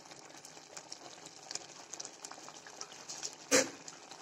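Mutton gravy boiling in an open pressure cooker: steady bubbling with many small pops. There is one sharper, louder knock about three and a half seconds in.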